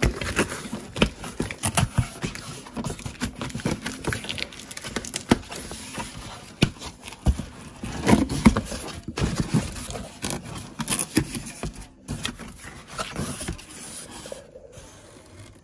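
Cardboard box, plastic wrapping and foam packing being handled and pulled open: a busy, irregular run of rustling, scraping and crackling.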